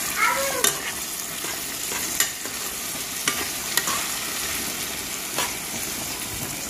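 Saltfish, sliced franks, onion and sweet peppers sizzling in oil in a pot while a metal spoon stirs them, clinking against the pot about five times.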